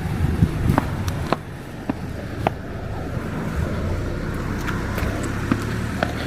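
Road vehicle engine running with a steady low hum and traffic noise, with scattered sharp clicks in the first few seconds.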